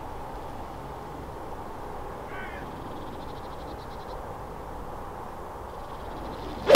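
Steady outdoor background noise, a bird calling once faintly about two and a half seconds in, then near the end the single sharp crack of a golf club striking the ball on a tee shot.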